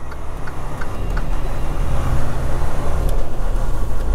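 Semi truck's diesel engine and road noise heard inside the cab while driving slowly, a steady low rumble that grows louder over the first two seconds. Faint light ticks, about three a second, sound in the first second.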